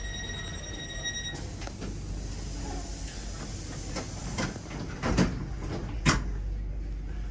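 Inside a Tyne and Wear Metrocar standing at a platform: a steady high electronic tone stops about a second and a half in, leaving a low hum. Near the end come two sharp thuds about a second apart, typical of the car's sliding doors shutting.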